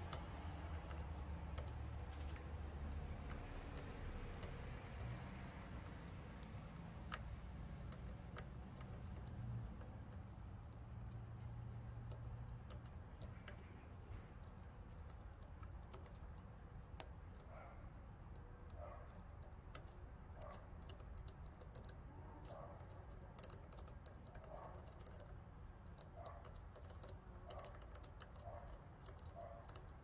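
Faint, irregular small metallic clicks of a thin pick tool pressing and tapping the pins of a Van Lock push-pin padlock while it is being picked. From about halfway on, softer ticks come roughly once a second.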